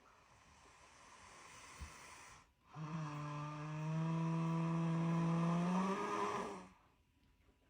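Heavy snoring under sedation: a long rasping breath, a brief pause, then a loud droning snore lasting about four seconds at a steady low pitch that rises slightly just before it stops.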